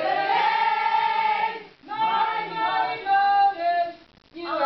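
A group of women's and men's voices singing together in unison, in short sustained phrases with brief pauses between them.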